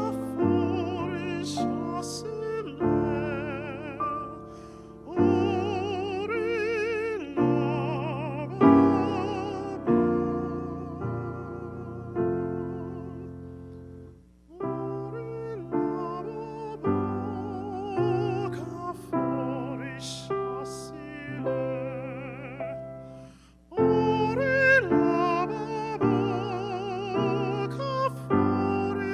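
Piano accompaniment with a classically trained voice singing long, held notes with a wide vibrato, in an operatic style. Chords are struck and left to die away, with short pauses about four, fourteen and twenty-three seconds in.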